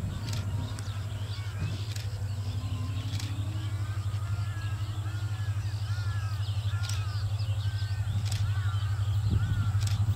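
Diesel locomotive engine throbbing low and steady as it hauls an express train up a gradient, slowly growing louder as it approaches. Birds chirp and call repeatedly over it.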